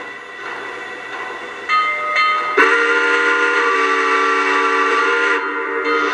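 Lionel Southern Pacific GS-2 O-scale steam locomotive's sound system blowing its chime steam whistle over the train's running noise: a softer start about two seconds in, then a long full blast of about three seconds that cuts off sharply.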